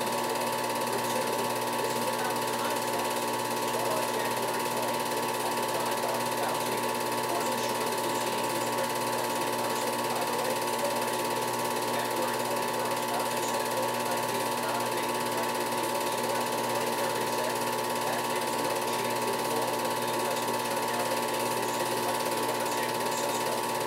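Film projector running: a steady mechanical clatter and whir from the film transport, with an unchanging hum-like tone.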